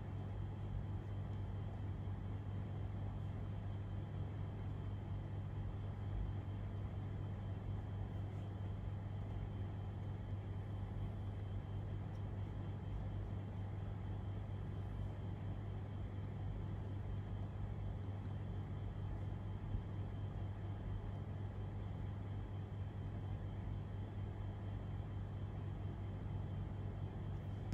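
Steady low hum with background hiss: room tone with electrical or machine hum. There is a faint click about twenty seconds in.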